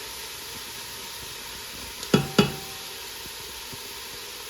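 Chopped onion, red peppers and mushrooms sizzling steadily in olive oil in a large pot, with two ringing clinks of a utensil against the pot about two seconds in.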